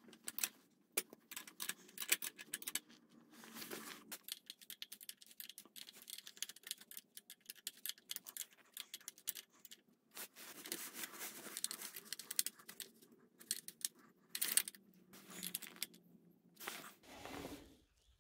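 Ratcheting ring spanner clicking in quick runs with short pauses as it tightens a pit bike's rear axle nut, with light metallic rattling of the tools.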